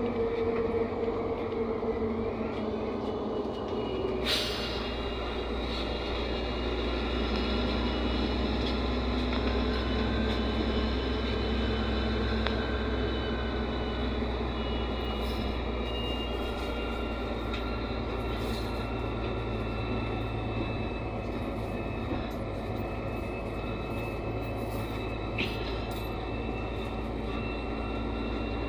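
Interior running noise of a NefAZ 5299 city bus under way, its Cummins ISBe diesel engine and road rumble steady. Two sharp clicks cut through, one about four seconds in and another a few seconds before the end.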